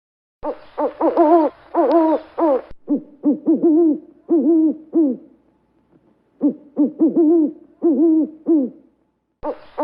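Owl hooting: quick runs of short rising-and-falling hoots in three bursts, with brief pauses between them.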